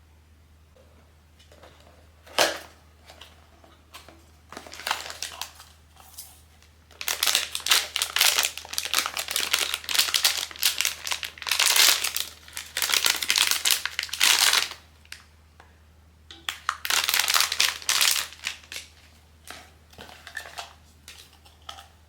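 Plastic or foil blind-box packaging being handled and crinkled open, in long bouts of crackling with a sharp knock a couple of seconds in.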